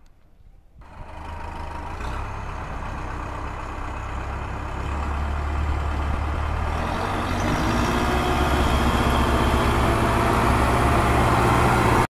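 Diesel tractor engine running with a steady low throb. It starts about a second in, grows louder toward the end, and cuts off suddenly at the very end.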